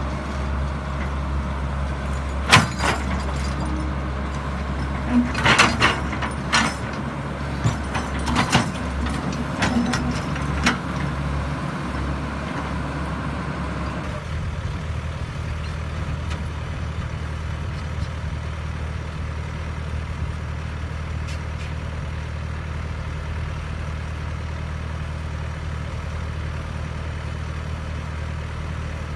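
Cat E110B hydraulic excavator's diesel engine running steadily while it digs, with sharp knocks and clanks from the bucket and arm over the first ten seconds or so. About halfway through, the sound changes to a smooth, steady engine hum with no knocks.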